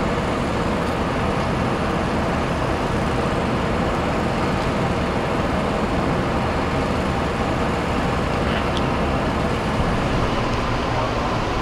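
Steady traffic noise: a continuous rumble of vehicles with no distinct events.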